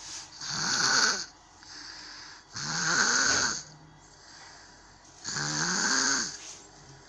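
A sleeper snoring: three snores, each about a second long, coming roughly every two and a half seconds, with quiet breathing between them.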